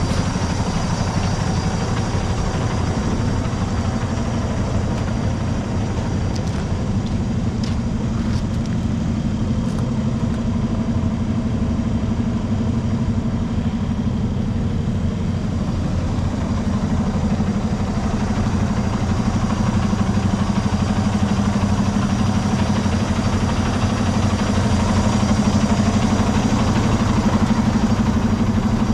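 Diesel engine of an International LT625 semi tractor idling steadily, growing a little louder in the second half.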